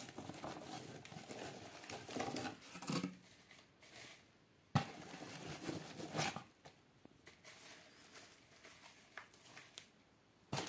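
Dry reindeer lichen crackling and rustling as it is pulled apart by hand and lifted out of a cardboard box, in irregular bursts. A single sharp knock sounds about five seconds in, and the handling is quieter over the last few seconds.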